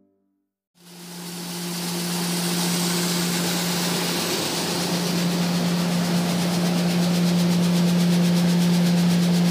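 Bean destoner running with black beans on its vibrating deck: a steady machine hum under a continuous dense hiss of beans and stones rattling and sliding over the screen. It comes in about a second in and holds steady.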